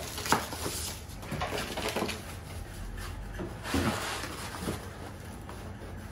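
Paper gift bag and cardboard packaging rustling and crinkling as gifts are unwrapped by hand. A sharp tap comes just after the start, and a duller knock about four seconds in.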